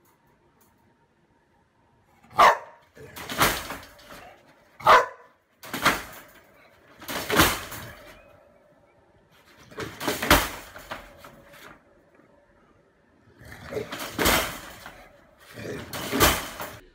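Bulldog in a wire crate barking, about eight loud barks spaced irregularly after a quiet first two seconds.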